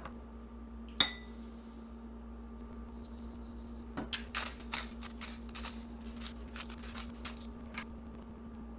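Kitchen prep at a glass mixing bowl: one sharp ringing clink of glass about a second in, then a run of irregular crisp clicks and crackles from about four to eight seconds in as dry seasoning is added over the bowl.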